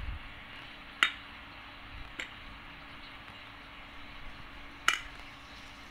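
A metal spoon clinks sharply against a steel bowl twice, about a second in and near the end, with a fainter tap in between, over a steady low hiss.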